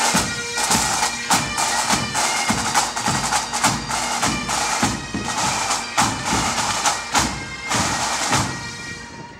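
A massed pipe band of bagpipes and drums plays a march. The pipes' steady drones and chanter melody run over regular snare and bass drum beats, about two a second, and the sound grows fainter near the end.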